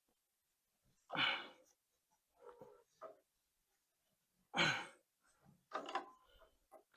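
A man breathing out hard twice, heavy sighs or grunts of effort while straining on a wrench against a very tight carburetor bolt, with faint small rustles and knocks between.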